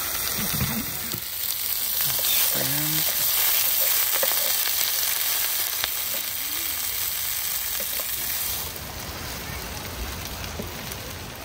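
Shrimp frying in hot cooking oil in a pan, a steady sizzle that eases off somewhat about three-quarters of the way through.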